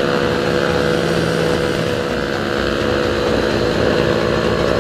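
Motorcycle engine running at a steady cruise on the open road, its pitch holding even, with wind rushing over the microphone.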